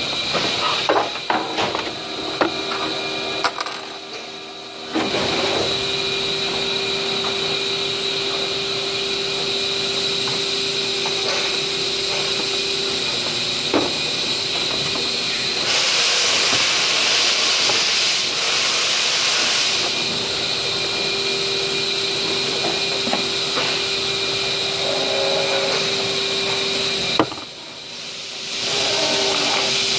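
Steady running of workshop machinery, a hum with a high whine over it. A louder hiss lasts a few seconds about halfway through. The sound drops out briefly near the end, then resumes. At the start come knocks and clatter from a plastic flower pot being handled on the table.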